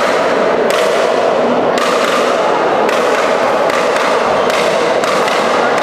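Steady loud din of a busy badminton hall, with racket strikes and play from matches on other courts blending into a dense noise.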